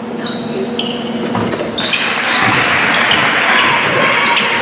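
Basketball game sounds in a gymnasium: sneakers squeaking on the hardwood floor, with spectators' voices and shouts growing louder about two seconds in as play resumes.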